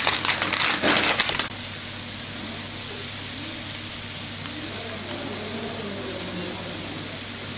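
Burger patties sizzling on an electric indoor grill, a steady hiss. A dense burst of crackling fills the first second and a half, then cuts off abruptly.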